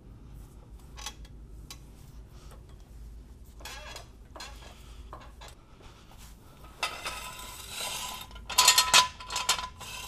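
Metal tools and a jack stand being handled, with scattered clinks and clatter, then a louder metallic rattling burst near the end.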